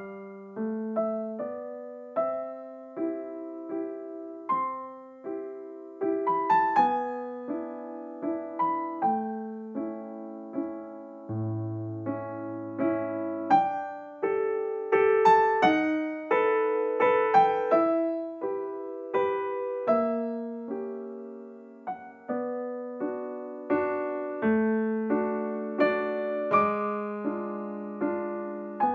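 Background piano music: a slow, gentle tune of struck notes and chords, a couple of notes a second, each ringing and fading.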